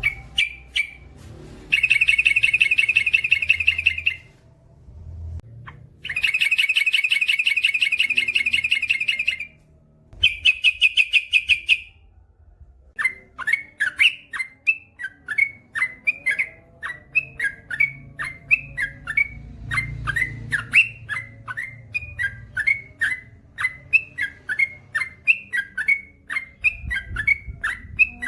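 Yellow-vented bulbul (trucukan) singing: three long, fast rolling trills of a few seconds each, then a run of short, quick down-slurred notes, about three a second.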